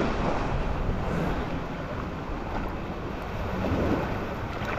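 Steady wind on the microphone over small waves lapping in shallow water.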